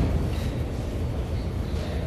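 Steady deep rumble of New York subway trains and machinery in an underground station, with a faint high whine above it.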